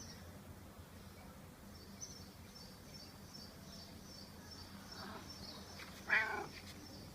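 Repeated high chirps of a bird calling steadily, about three a second. About six seconds in comes a short, louder call with a bending pitch.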